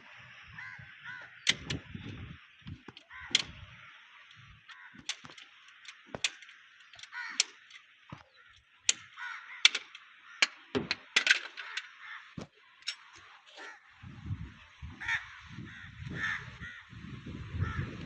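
Crows cawing repeatedly. Through it run many sharp clicks and knocks, the loudest sounds, with dull low thuds near the end.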